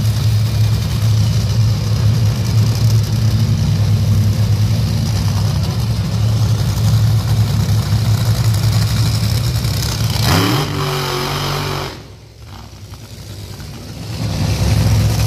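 Drag-racing engine idling with a loud, steady low drone, then revving upward about ten seconds in. The sound drops away sharply soon after and the drone returns near the end.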